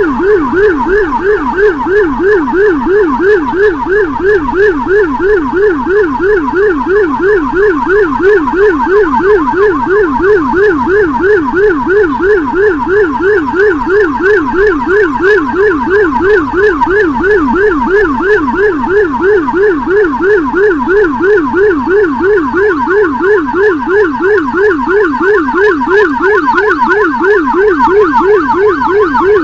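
Whelen electronic siren on an ambulance-escort motorcycle sounding in fast yelp mode. It is loud and unbroken, sweeping up and down about three times a second.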